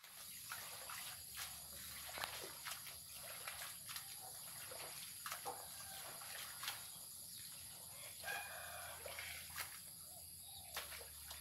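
A rooster crowing faintly about eight seconds in, over quiet outdoor ambience with scattered small clicks.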